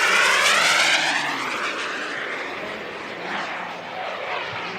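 Turbine engine of a Hangar 9 Aermacchi MB-339 RC model jet making a close, fast pass: loudest in the first second, then fading away.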